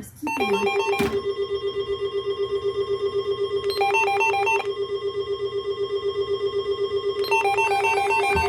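Electronic alert-style tones: a low beep pulsing rapidly, about six times a second, under three short phrases of electronic melody, with a sharp click about a second in.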